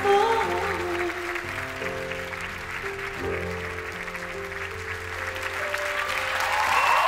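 Audience applauding over slow music with long held chords; the applause thins out in the middle and swells again near the end.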